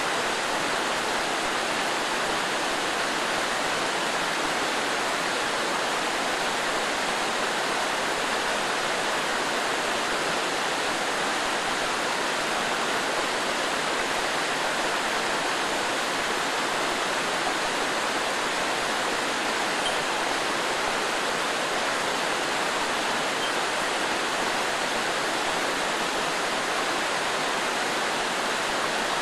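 Small mountain stream rushing steadily down rocky cascades, a constant even roar of falling water.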